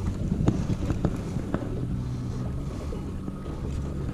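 Wind on the microphone over a low steady drone, with a few sharp light clicks in the first second and a half as a spinning reel is handled and wound.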